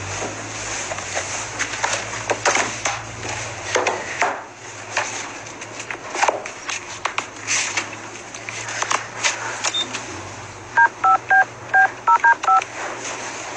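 Touch-tone beeps from a cordless phone's keypad as a number is dialled: about seven quick two-tone beeps in under two seconds near the end. Before them come scattered clicks and rustles of paper as the pages of an address book are handled.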